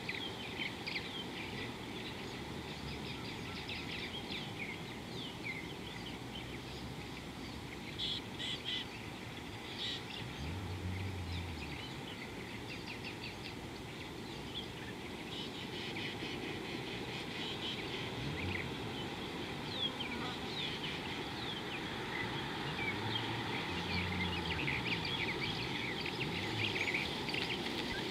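Wild birds chirping and calling over a steady outdoor hush, a continuous scatter of short high chirps. A low rumble comes in twice, for a second or two each time.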